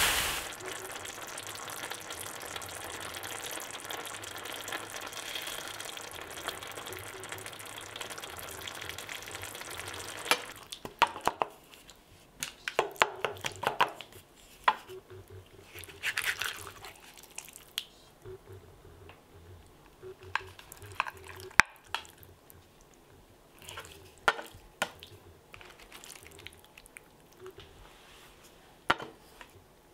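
A steady hiss for about ten seconds, then quieter, with scattered sharp clinks and scrapes of a utensil against cookware.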